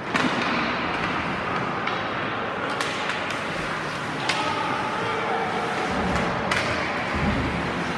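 Ice hockey play in an indoor rink: a steady wash of skates, sticks and arena noise, broken by four sharp knocks of sticks and puck, the loudest right at the start.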